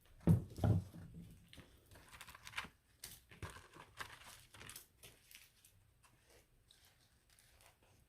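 Crinkling and rustling of food packaging being handled, with two soft thumps about half a second in; the small rustles fade out after about five seconds.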